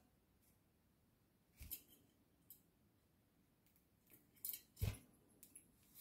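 Budgerigar preening, its beak making a few quiet, scattered clicks and snips in its feathers, the loudest two close together near the end.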